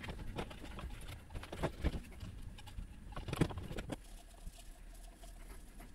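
Irregular light clicks, scrapes and rubs of plastic as hands handle a megaphone's nested horn cones inside the bell, quieter in the last couple of seconds.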